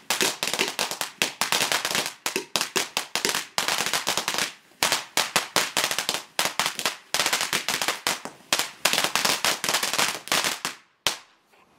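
A firework going off in rapid runs of sharp cracks and pops, in several bursts with brief gaps between them, stopping shortly before the end with one last crack.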